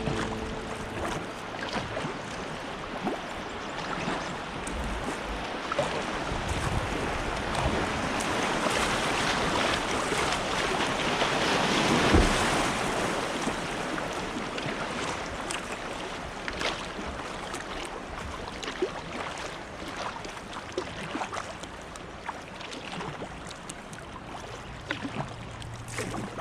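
River water rushing around a kayak, with small splashes and drips from the paddle; the rush of water grows louder toward the middle and then eases off.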